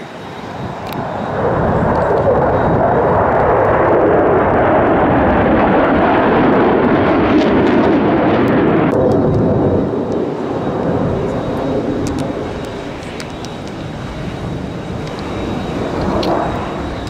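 Blue Angels jet formation roaring overhead during an aerobatic climb and dive. The jet noise swells over the first couple of seconds, holds strong for several seconds, eases in the middle and builds again near the end.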